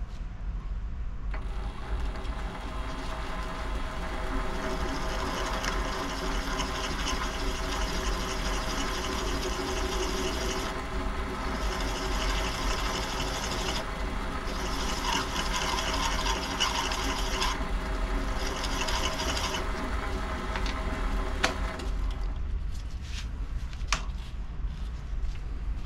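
WM210V variable-speed benchtop lathe starting up about a second in and running steadily with a whine of several even tones, while a higher hiss comes and goes over it several times; a sharp click sounds just before the machine stops near the end.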